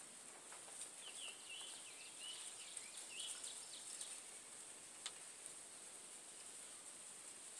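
Faint outdoor ambience: a small bird twitters in a quick run of chirps for a couple of seconds about a second in, over a steady high hiss, with a light click about five seconds in.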